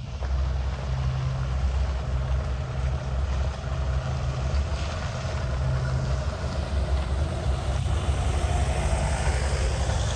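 A van's engine and tyres as it drives slowly along a paved path toward the listener, the noise building as it comes closer, over a steady low rumble.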